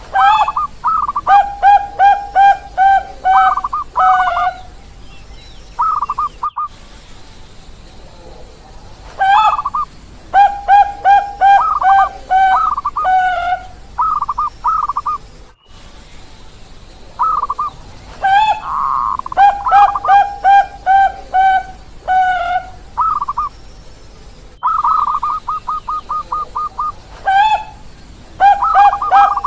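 Zebra doves (Bangkok-bred perkutut) cooing in four bouts separated by short pauses. Each bout opens with a rising note and runs into a quick string of short, evenly spaced coos.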